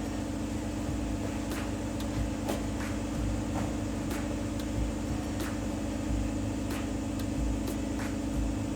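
A machine running with a steady hum, with sharp clicks or taps scattered through it.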